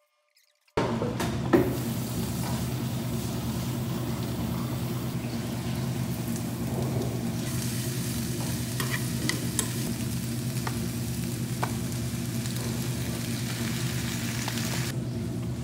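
Sliced onions sizzling in a nonstick frying pan as they are stirred with a metal utensil, with small scattered clicks of the utensil against the pan. The sizzle starts abruptly about a second in, with a steady low hum underneath, and eases off near the end.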